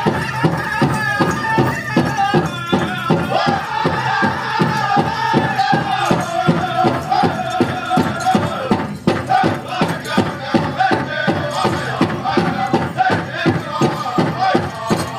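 Powwow drum and singers performing a grass dance song: a steady beat on the big drum at about three strokes a second, with voices singing a high, wavering melody over it.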